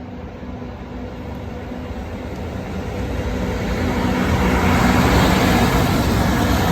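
A vehicle approaching, its noise building steadily louder over about five seconds, then holding.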